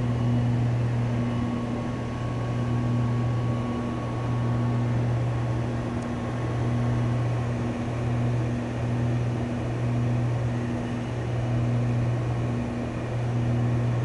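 Piper Seneca III twin-engine light aircraft heard from inside the cabin on landing approach: its two turbocharged six-cylinder piston engines and propellers run as a steady deep drone, with a slow, regular swell and fade in level.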